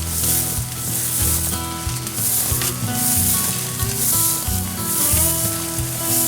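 Background music with a bass line, held notes that change every second or so, and a cymbal-like hiss about once a second.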